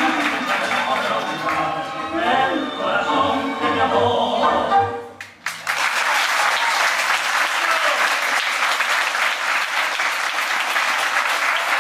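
Tango song with a singer comes to its final note about five seconds in. After a brief gap, audience applause follows and keeps going.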